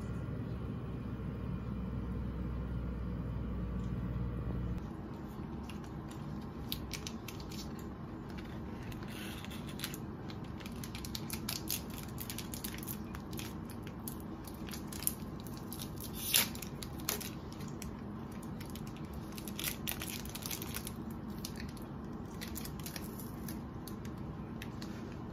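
Close handling sounds at a desk: crinkly rustling and scattered light clicks and taps as a small crumpled yellow wrapper or paper is worked in the hands, with one sharper tap about two-thirds of the way in. A steady low hum sits under the first few seconds.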